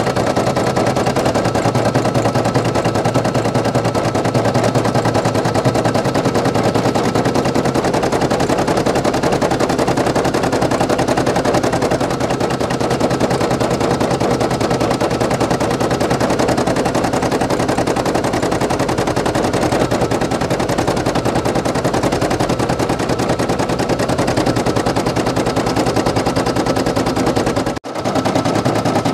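Brother PE800 embroidery machine stitching at speed: a rapid, even rattle of needle strokes. It cuts out briefly near the end.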